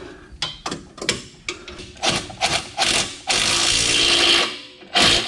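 Clicks and knocks of tools against the suspension, then about three seconds in a Milwaukee cordless impact driver runs for about a second, tightening the 16 mm nut on an aftermarket sway bar end link, with one more short burst near the end.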